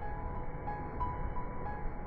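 Background music: soft, sparse single notes, a few a second, over a steady low rumble.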